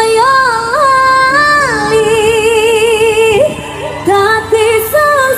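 Music with a woman singing a slow melody, holding long notes with a wavering vibrato.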